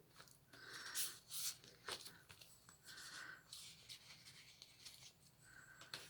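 Faint rustling and scraping of paper and card as the pages of a handmade journal are turned and handled, with a few light ticks about two seconds in.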